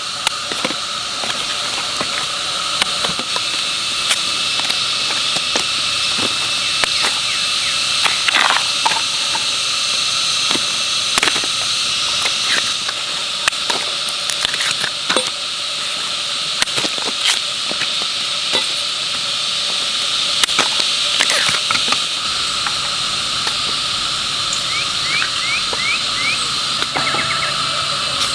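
A steady high-pitched hiss with a constant drone-like tone, with many scattered sharp clicks and knocks and a few quick chirps near the end.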